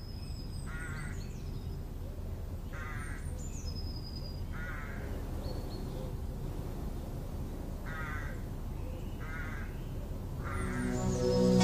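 Harsh cawing bird calls, mostly in pairs a second or so apart, repeating every few seconds over a low steady hum, with thin high chirps from other birds. Music comes in near the end.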